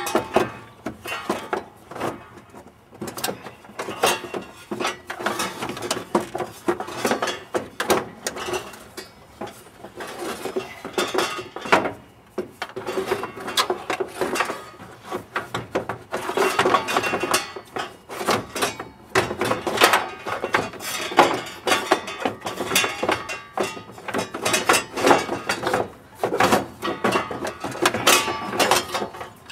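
Hand wrench and metal engine parts clinking and clicking as the radiator fan is unbolted from the water pump: a long, irregular run of short metallic clicks.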